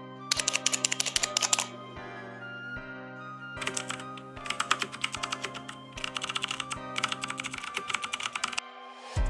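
Three runs of rapid clicking, over background music with sustained notes that stops near the end.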